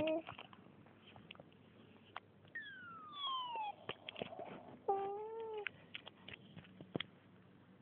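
An animal's drawn-out cries: one long call falling steadily in pitch, then a shorter call that rises and falls, among scattered clicks and knocks.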